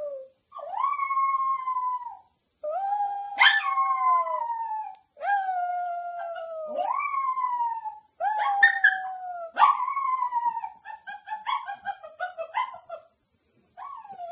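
Chihuahua howling: about six long howls, each jumping up in pitch and then sliding slowly down, with short breaks between them. About two-thirds of the way through, the howling breaks into short, choppy yipping notes before one more long howl.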